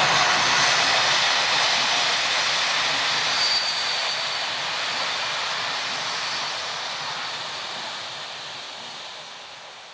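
Passenger train's coaches rolling past on the rails and receding, an even rushing rumble that fades steadily toward the end.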